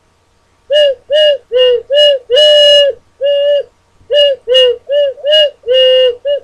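Six-hole ocarina, its tuning adjusted with tape over the holes, played as about a dozen short tooted notes hopping between two close pitches. One note about two seconds in is held longer.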